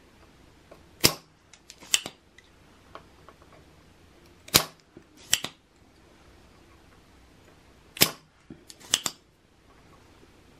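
Spring-loaded desoldering pump (solder sucker) snapping as it fires and is re-cocked, pulling molten solder off through-hole capacitor joints on a circuit board. The sharp snaps come in three pairs, each pair a little under a second apart, about every three and a half seconds.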